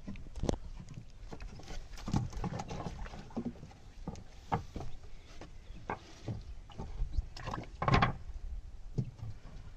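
Irregular knocks and thumps on a wooden boat's plank deck, with one louder, longer clatter near the end.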